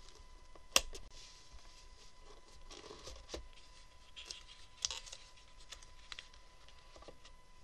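A cardboard trading-card box being opened by hand: a sharp snap a little under a second in, then cardboard scraping and rustling as the lid is worked off, with another click about five seconds in.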